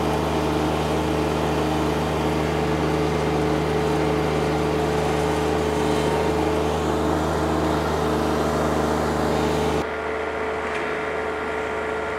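Ventrac 4200 compact tractor's engine running steadily under load with its power rake attachment driving through the soil. About ten seconds in the sound drops suddenly to a quieter, duller engine hum.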